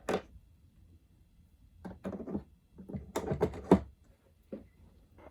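Small metal lathe accessories being handled and set down: a few sharp knocks and clatters, the loudest a little before the four-second mark.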